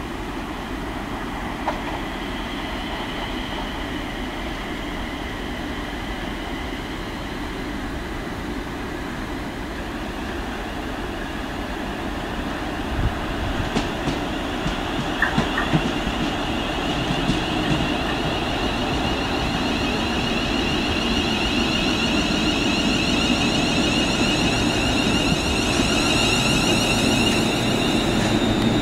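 ScotRail Class 380 electric multiple unit running toward the station, its rumble growing louder as it nears. A few sharp clicks and knocks come from the wheels about halfway through, and a high steady whine builds over the last third.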